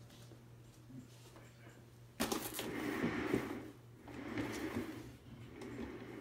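Cat exercise wheel rolling and rumbling under a running Maine Coon, starting suddenly about two seconds in and coming in three stretches with short lulls between them.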